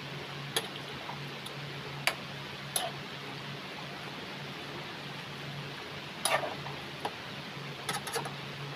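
A metal ladle clinks against the side of an aluminium wok while a pot of chicken soup is stirred: scattered sharp taps, with a cluster about six seconds in and a few more near the end. Under them runs a steady low hiss and hum.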